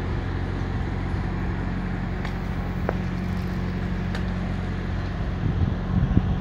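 Volvo FH truck's diesel engine idling steadily with a low, even hum, while it sits with its front wheel bogged in sand. A few faint clicks are heard, and there is a brief rumble near the end.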